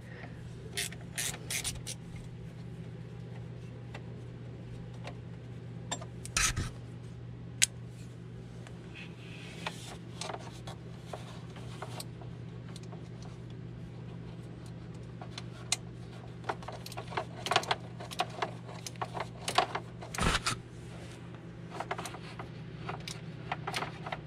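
Scattered metallic clicks and clinks of a hand wrench working bolts on an engine's coolant crossover tube, with hands rubbing against hoses and brackets. The clicks come in small clusters over a steady low hum.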